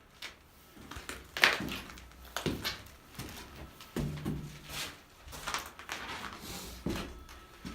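Footsteps of someone walking through a wrecked, debris-strewn building, about one step every three-quarters of a second. The loudest step falls about a second and a half in.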